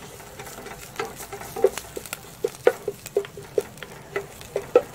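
Wooden spatula knocking and scraping against an enamel pot while stirring chopped garlic and crushed ginger frying in hot oil, with a light sizzle underneath. The knocks come in a quick, irregular series, about three a second.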